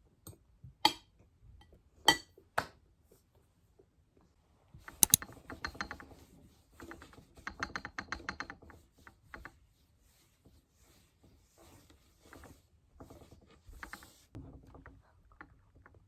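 Handling noise of small hard objects: a few sharp separate clicks, then a few seconds of dense rattling and clattering, then lighter scattered clicks.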